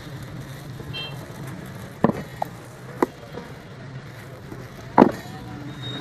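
Clear plastic wrapping crinkling and a few sharp handling knocks as a sewing machine in its plastic cover is moved about on its wooden base, the loudest about five seconds in, over a steady low hum.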